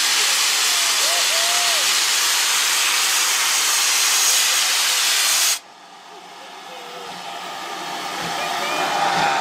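Steam hissing loudly from the cylinder drain cocks of GWR 4144, a Large Prairie 2-6-2 tank locomotive, stopping abruptly about five and a half seconds in. After that the locomotive's quieter sound builds again toward the end.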